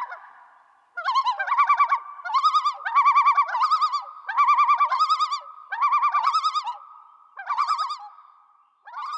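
Bird-like warbling calls in about eight short trilled phrases, each with a quick wobble in pitch, over a faint steady tone.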